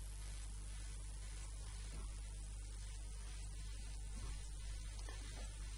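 Steady hiss with a low electrical mains hum underneath: the background noise of the recording setup, with no other sound standing out.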